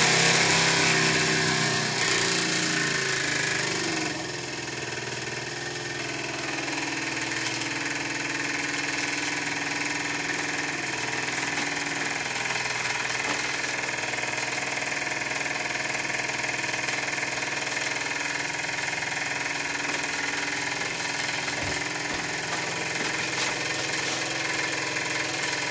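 Microcosm M1 double-acting marine steam engine running fast on steam, a steady rapid mechanical chatter. A few seconds in its pitch falls and it gets quieter as it slows, then it runs on steadily.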